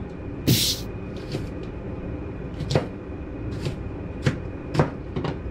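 Kitchen knife mincing an onion on a cutting board: slow, uneven chops, about seven, each a sharp knock of the blade on the board.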